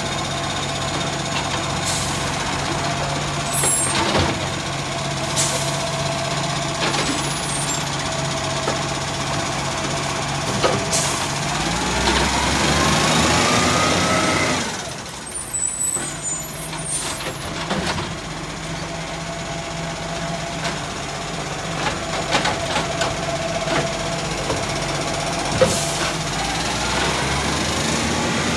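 Iveco Acco side-loader garbage truck running, its diesel engine and hydraulic bin-lifting arm working steadily, with several sharp hisses and clunks. About halfway through, the engine note rises as the truck pulls away, then drops suddenly.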